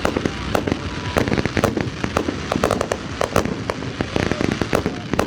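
Aerial fireworks going off in quick succession: a dense run of sharp bangs and crackles, several a second.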